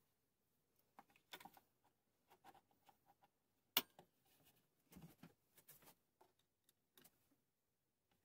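Faint handling noises of screws, a metal tool and decking boards on a wooden workbench: scattered light clicks and knocks, with one sharp click about four seconds in.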